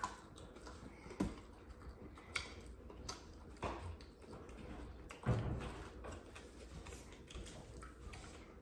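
Scattered soft clicks, taps and rustles of eating at a table: hands picking at grilled fish on aluminium foil and handling food and dishes. One heavier thump about five seconds in is the loudest sound.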